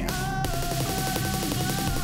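Instrumental electronic pop music with held synth chords over a fast, evenly repeating rhythm and no vocals.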